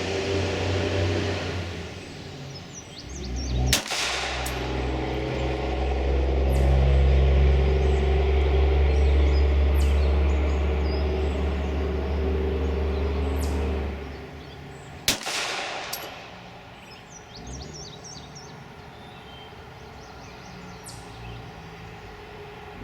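Two single shots from a Glock 26 subcompact 9mm pistol, about eleven seconds apart: slow, deliberately aimed fire. A low rumble underlies the first part and stops shortly before the second shot.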